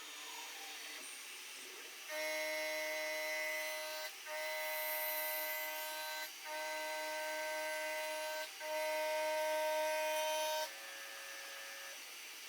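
CNC milling machine cutting brass, a steady pitched tone from the cutter. It comes in louder about two seconds in as four passes of about two seconds each with short breaks between them, then drops back to a quieter running tone near the end.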